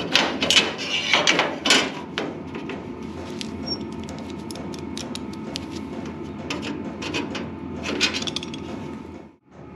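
Hand tools knocking and clinking on bare sheet-steel cab panels: several sharp metallic knocks in the first two seconds, then lighter clicks and taps of a wrench on a bolt, with one more knock shortly before the end, over a faint steady hum.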